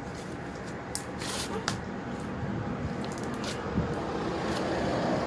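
Slime being handled and squeezed by hand, wet squishing with a few sharp little clicks and pops, over steady background noise.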